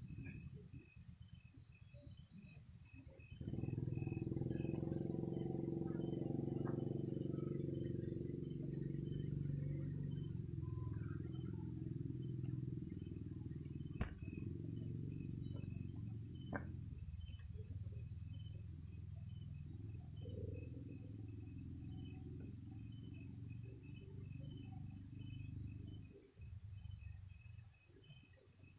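Steady high-pitched insect chirring, like crickets, throughout. A low droning hum joins about three seconds in and cuts off near the end.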